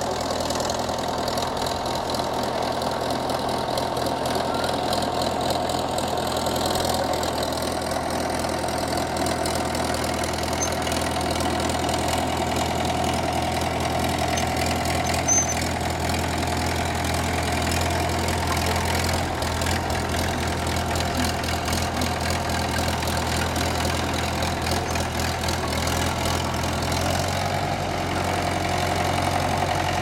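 Engine of a 1959 International BTD6 Drott crawler track loader running steadily while the machine pushes snow with its bucket.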